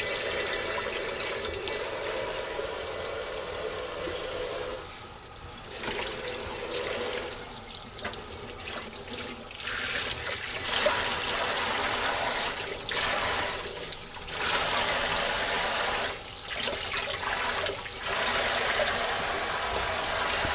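Kitchen faucet spray splashing onto a cured salmon fillet and into a stainless steel sink and metal bowl as the cure is rinsed off under cold water; the splashing rises and falls as the fillet is moved in and out of the stream.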